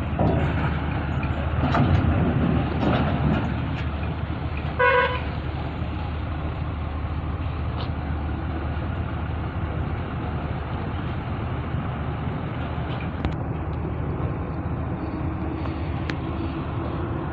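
Tow truck's diesel engine running under load as it pulls a front-lifted lorry down a ship's ramp, louder in the first few seconds and then a steady low rumble. A vehicle horn toots once, briefly, about five seconds in.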